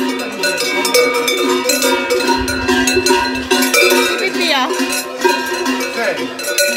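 Several large metal cowbells clanking and ringing together, their many tones overlapping continuously with irregular clanks.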